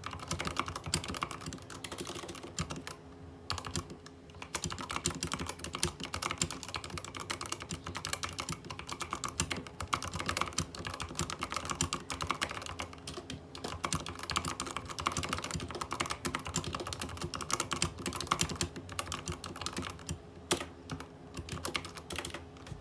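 Typing on a Rakk Ilis mechanical keyboard with Outemu Red linear switches and PBT keycaps: fast, continuous keystroke clacks, with a brief lull about three seconds in.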